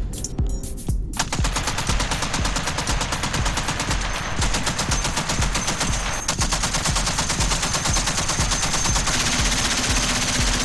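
Machine gun firing fully automatic: a few separate shots, then a rapid, unbroken stream of gunfire from about a second in.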